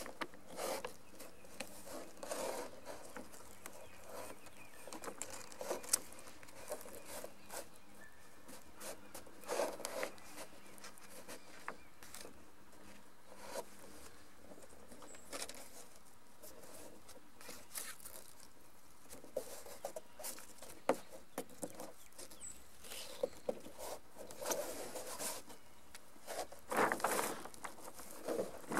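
Monofilm windsurf sail and adhesive leech tape being handled and pressed down by hand: irregular soft rustles, crinkles and light taps.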